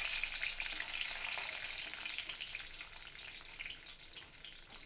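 Cashews sizzling and crackling as they fry in hot oil in a wok, stirred with a wooden spatula. The sizzle slowly dies down.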